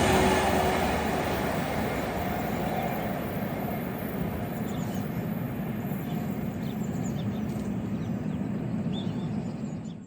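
Passing train receding: its rumble fades over the first two seconds and settles into a steady low rumble, with a few faint bird chirps in the second half. The sound fades out abruptly at the very end.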